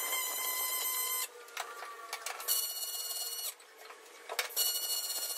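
Arc welding on an aluminium boat hull: the welding arc buzzes with a high, steady tone in three runs, stopping about a second in, running again for about a second in the middle, and starting once more near the end.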